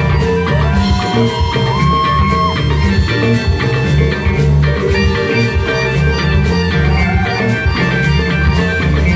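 A live band playing: electric guitars, bass, drum kit and hand drums, with a lead line of held, bending notes in the first couple of seconds.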